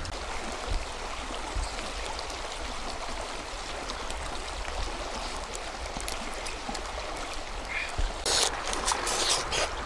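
Shallow stream rushing over rocks: a steady wash of flowing water, with a few brief clicks near the end.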